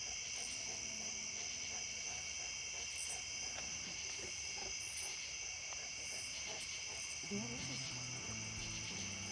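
Night insects, crickets, trilling in a steady high-pitched chorus without a break. About seven seconds in, low stepped tones like music come in underneath.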